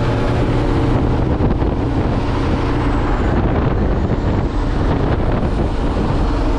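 Kenworth T800 dump truck's Cummins X15 diesel engine running at a steady cruise, heard from inside the cab together with steady road noise.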